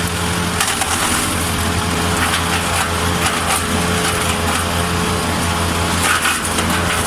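Wood chipper's engine running steadily, with a few crackles near the end.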